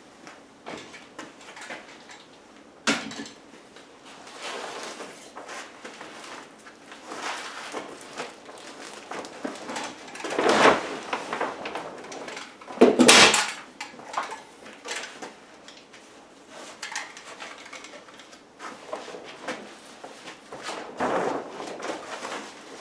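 6-mil polyethylene vapor barrier sheeting being handled and stretched, rustling and crinkling unevenly, with a single sharp click about three seconds in. The loudest rustles come about ten and thirteen seconds in.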